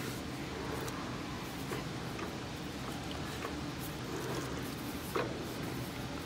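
Steady air-conditioner fan noise, with a few light clicks and ticks as a lathe chuck is turned by hand to drive a tap into a drilled hole. The clicks are scattered, the clearest about five seconds in.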